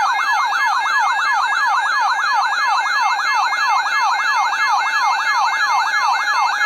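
Electronic siren in a fast yelp, sweeping up and down in pitch several times a second without a break.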